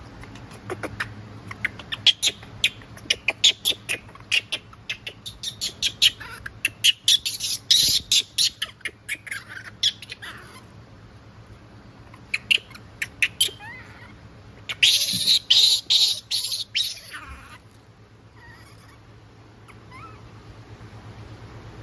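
Japanese macaques screeching, in rapid runs of sharp, high-pitched squeals: a long bout over the first ten seconds and a shorter one about fifteen seconds in.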